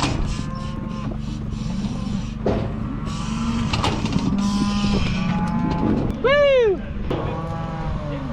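Calves bawling again and again, with one loud rising-and-falling bawl about six seconds in, over a steady low engine hum and a few sharp metal knocks.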